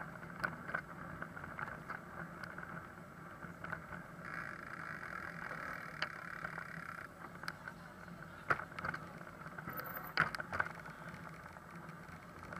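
Bicycle rolling over brick paving, heard from a camera mounted on the bike: a steady rolling noise with scattered rattles and knocks.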